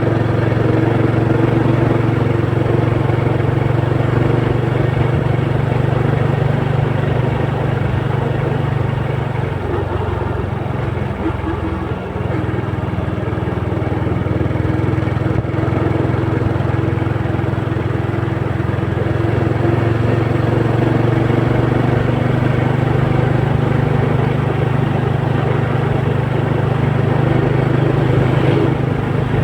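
Engine running steadily, with a brief dip about ten seconds in.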